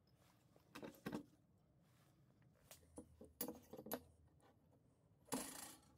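Clinks and knocks of a metal pipe and an aluminium square being set down and shifted on a wooden workbench. They come in three groups: about a second in, between three and four seconds, and a longer clatter near the end.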